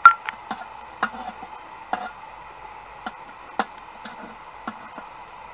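Wood fire crackling: irregular sharp pops and ticks over a faint steady hiss, the loudest pop just at the start.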